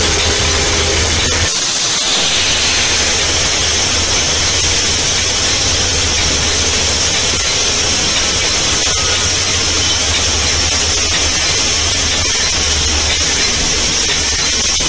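Steady loud rushing noise from a camera on the front of a moving locomotive: wind and rail running noise, with no horn or other distinct event.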